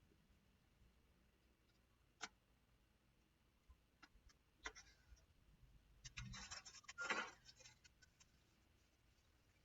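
Faint handling noises of small tools and parts on a repair bench: one sharp click about two seconds in, a few light ticks a couple of seconds later, then a louder scraping rustle for about a second and a half.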